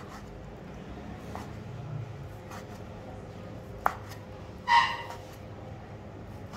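Large kitchen knife cutting baked chicken breast into cubes on a wooden chopping board, the blade knocking sharply on the board a few times. About two-thirds of the way through, a short high-pitched cry, louder than the chopping, cuts in briefly.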